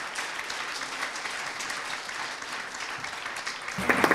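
Audience applauding, many hands clapping in a steady patter. Near the end comes a single louder, low knock.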